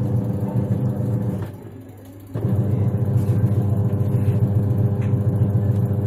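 Daewoo top-loading washing machine's motor and gearbox driving the pulsator on the wash cycle with the tub empty, a steady low mechanical hum. About a second and a half in it cuts out for under a second, then starts again abruptly, the pause where the wash action switches direction.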